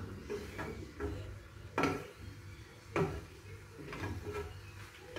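Spatula stirring in a frying pan, knocking against the pan a few times with short, sharp clacks, the loudest about two seconds in and another about a second later.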